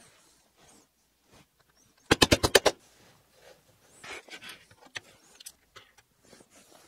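A quick rattle of about eight sharp clicks in half a second, then faint scattered knocks and rustles of small parts and tools being handled on a workbench.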